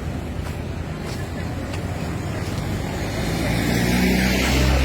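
Coach bus engine running amid road traffic noise, the low engine note growing louder over the last second and a half.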